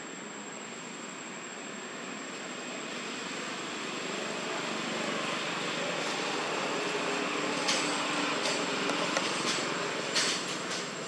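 A distant engine's drone swelling slowly over several seconds and then easing, like a motor passing by, under a steady high-pitched whine. A few sharp clicks come in the second half, the loudest about ten seconds in.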